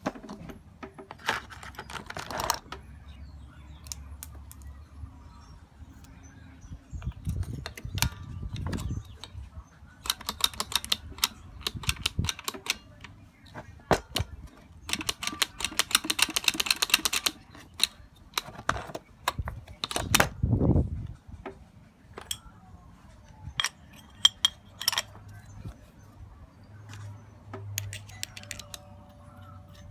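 Metal starter-motor parts clicking, knocking and clattering as they are handled and fitted together by hand on a wooden bench, with a quick run of rapid ticks about halfway through.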